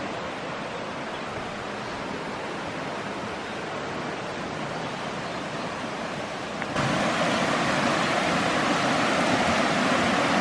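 Creek water rushing over rocks, a steady rush that suddenly gets louder about seven seconds in.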